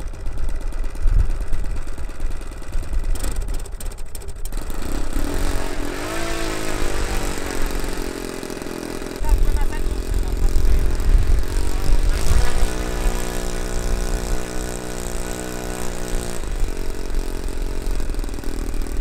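Model airplane engine being started: it catches about five seconds in, rises in pitch and runs, is run up louder for about four seconds past the middle, then settles back. Wind rumbles over the microphone at times.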